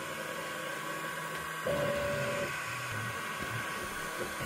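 WEEFUN Tina2 PLUS desktop 3D printer running as a print gets under way: a steady fan hiss with a faint steady hum, and a short, steady whine from the stepper motors a little under two seconds in as the print head moves.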